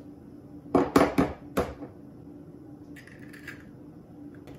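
An egg being cracked: four sharp knocks about a second in as the shell is tapped against a hard edge, then softer crackling near three seconds as the shell is pulled apart.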